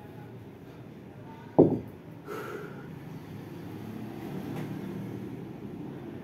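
A 16 kg kettlebell put down on stone paving at the end of the set: one loud, heavy thud about a second and a half in, ringing briefly, over a steady low background hum.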